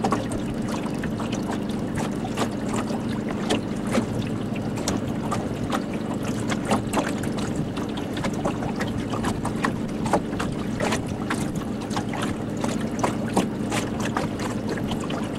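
A boat's motor running steadily, with many small clicks and knocks over its hum.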